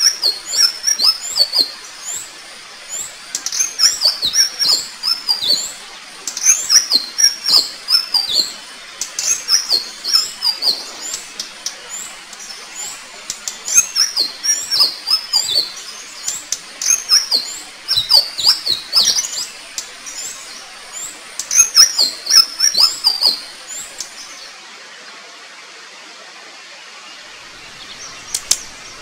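Indigo flycatcher (Eumyias indigo) singing: repeated short phrases of high, quickly falling whistled notes, one every two or three seconds. The song stops about 24 seconds in, leaving a steady hiss.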